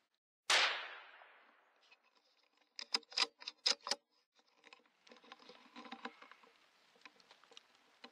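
A single gunshot about half a second in, dying away over about a second. A quick run of sharp clicks follows a couple of seconds later, then light rustling and crackling.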